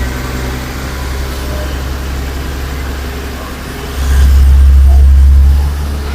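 Heavy earthmoving machine's diesel engine running steadily with a deep hum, growing louder for about a second and a half about two-thirds of the way through, then settling back.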